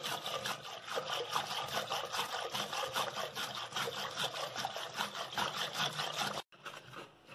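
Wire whisk spun back and forth between the palms in a clay pot of curd and water, churning it into frothy buttermilk: a rapid, rhythmic sloshing and swishing, several strokes a second, that stops about six and a half seconds in.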